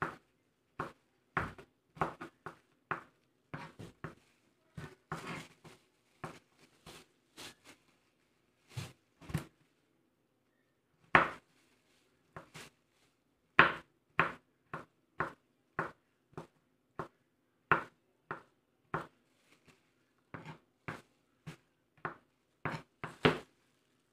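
Kitchen knife cutting garlic cloves on a wooden chopping board: separate sharp knocks about one to two a second, with a pause of a couple of seconds near the middle.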